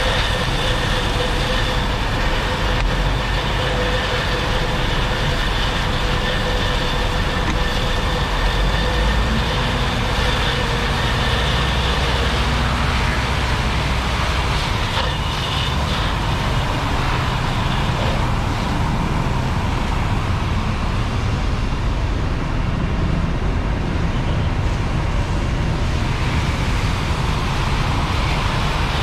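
Steady rumble of fire engines running their pumps at a working fire, mixed with the hiss of water jets. A steady whine runs through the first twelve seconds or so and then fades.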